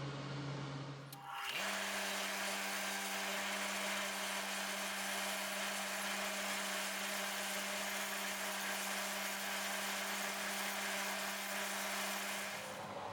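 An electric motor running at a constant speed, with a steady hum and a bright rushing hiss. It starts abruptly about a second and a half in, replacing a lower hum, and cuts off just before the end.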